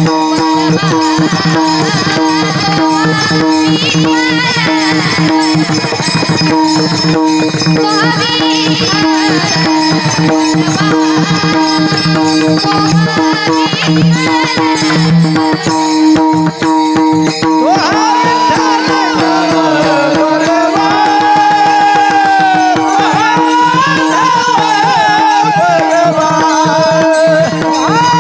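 Varkari kirtan music: a steady drone under dense pakhawaj drumming and jingling hand cymbals. About two-thirds of the way through, a high sung melody line comes in over them.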